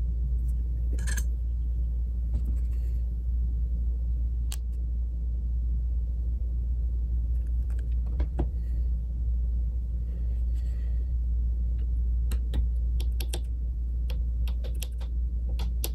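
Small steel advance weights and plates of a Ford Model B distributor being handled and fitted: faint scattered metal clicks and taps, more frequent near the end, over a steady low hum.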